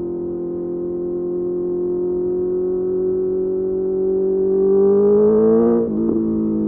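Honda CBR650R's inline-four engine through a Mivv MK3 carbon exhaust, pulling under throttle with the pitch rising steadily and getting louder. Just before six seconds the sound breaks off sharply and drops to a lower pitch, as at an upshift.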